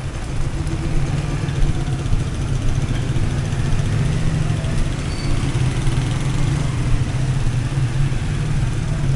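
Street traffic on a wet road in the rain: vehicle engines running with a steady low hum, over an even hiss of rain and tyres on wet pavement.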